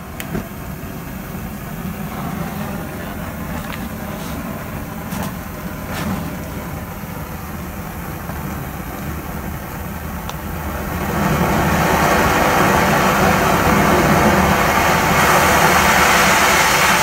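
Oxygen-propane torch burning with a steady rushing hiss, a few light clicks in the first half. About eleven seconds in it turns louder and hissier as the bushy yellow flame is narrowed into a tighter jet.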